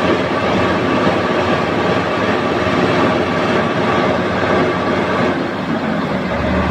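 XCMG mobile crane running, a loud steady mechanical noise with a constant whine through it. A deeper hum comes in just before the end.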